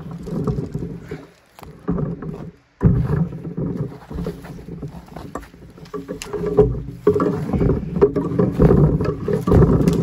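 Close footsteps tramping through patchy snow and dry leaf litter, with rustling as bare branches are brushed past. The sound comes in uneven bursts with short pauses about one and a half and two and a half seconds in.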